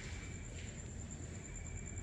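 A cricket trilling steadily, one high, rapidly pulsing note, over a low rumble.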